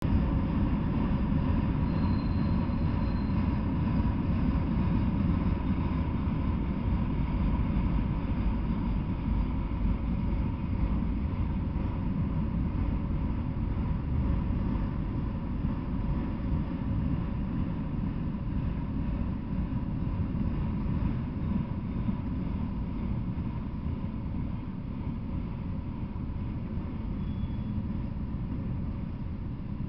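Freight train of enclosed autorack cars rolling past at steady speed: a continuous low rumble of steel wheels on the rails, easing off slightly toward the end.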